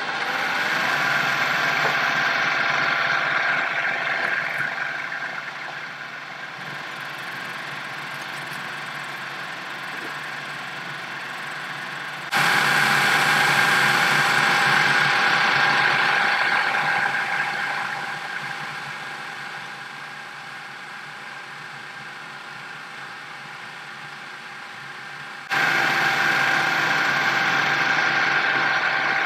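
A machine running steadily with a high, even whine, heard in three stretches that are cut together. Each stretch starts loud and eases down over several seconds.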